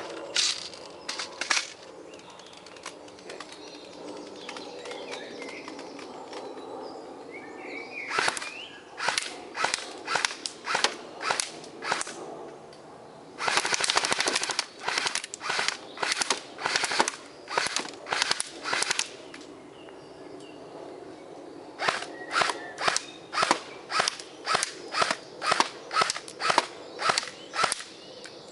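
Airsoft gun firing sharp single shots in three strings, mostly about two a second, with a short rapid burst about halfway, as pellets are shot at a helmet and full face mask.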